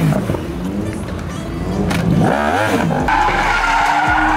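Car engine revving up and down, then tyres squealing steadily as the car drifts, from about three seconds in, with music underneath.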